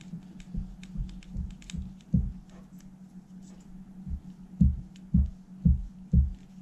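A screwdriver working a small screw on a cassette deck's tape mechanism held in the hands: about nine dull handling knocks with light clicks. The four loudest knocks come about half a second apart near the end, over a steady low hum.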